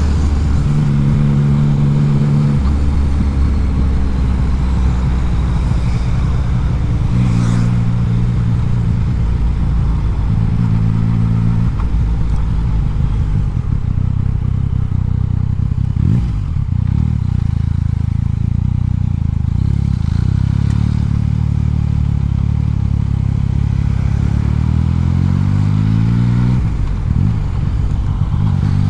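Yamaha MT-09's inline three-cylinder engine and exhaust heard from on board while riding, holding low steady notes with a few throttle changes, then revving up in a rising pitch near the end.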